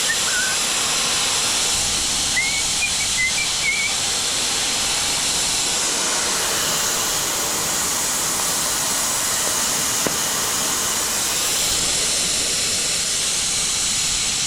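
Compressed air hissing steadily out of a Kobalt air compressor's tank as it is bled down from about 20 psi.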